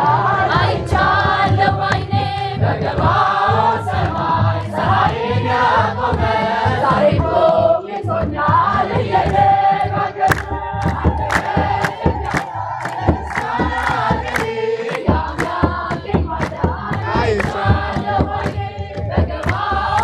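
A crowd of worshippers sings an Ethiopian Orthodox church hymn together, with a drum beating underneath. About halfway through, sharp hand clapping joins in at about two claps a second.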